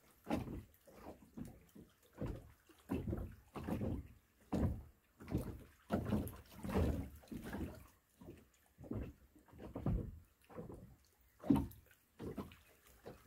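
Small waves lapping at the water's edge by the rods, in repeated uneven sloshes about every half second to a second.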